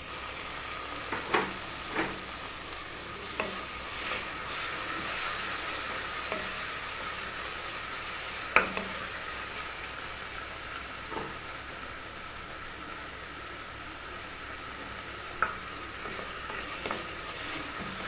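Chopped tomatoes and shallots sautéing in hot oil in an aluminium pressure cooker: a steady sizzle that picks up right at the start, stirred with a wooden spatula that knocks against the pot a few times.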